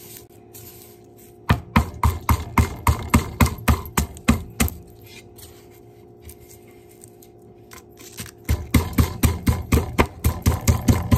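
Kitchen knife striking garlic cloves on a wooden cutting board in quick, even taps, about five a second. There are two runs of a few seconds each, with a pause of about four seconds between them.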